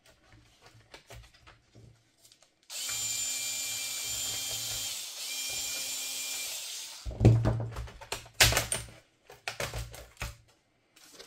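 Small electric screwdriver motor whirring for about four seconds, with a brief break partway through, as screws are driven out during laptop disassembly. It is followed by a run of sharp clicks and loud knocks as the parts are handled.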